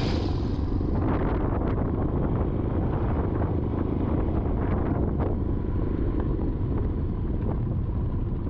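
Yamaha XT350 trail bike's single-cylinder four-stroke engine running at low speed on a rough dirt track, under steady wind buffeting on the microphone. Scattered clicks and knocks from stones and the bike jolting over the ruts.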